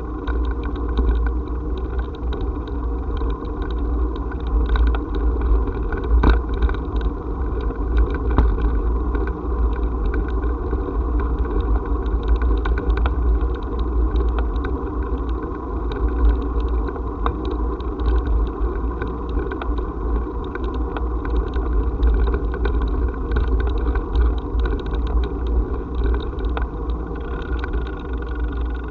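Steady low rumble with frequent rattling clicks from wheels rolling over brick paving and the vehicle-mounted camera shaking on it.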